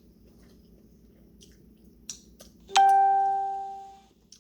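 A single bell-like ding about two-thirds of the way in, struck sharply and ringing out clearly before fading away over a little more than a second. A few faint small clicks come before it.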